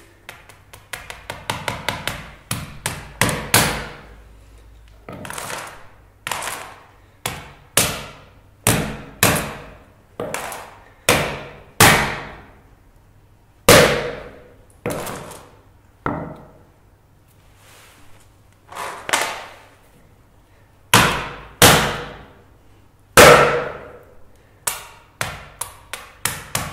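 A sledgehammer head is struck again and again onto the glass of a Sony Xperia Z smartphone lying on concrete, each hit a sharp knock with a short ringing tail. The blows come irregularly: quick flurries of light taps near the start and the end, and single harder strikes about a second apart in between.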